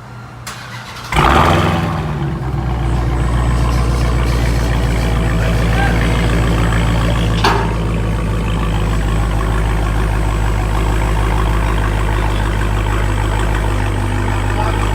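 Dodge Hellcat's supercharged 6.2-litre Hemi V8, with its resonators deleted, starting about a second in with a loud flare of revs, then settling into a steady idle. A single sharp click sounds about halfway through.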